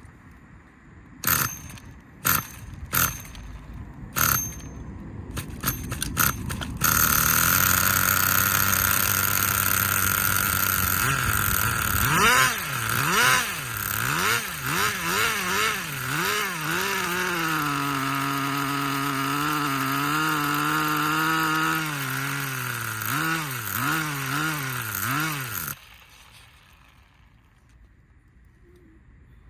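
Small nitro-glow RC car engine, a T2M, firing in a few short bursts before it catches about seven seconds in, then running at a high buzzing pitch that wavers up and down again and again, until it cuts off suddenly near the end.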